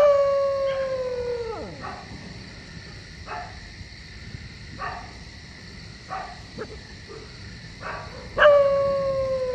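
A dog howling twice, each howl a long steady call that drops sharply in pitch at the end. Short yelps come between the howls.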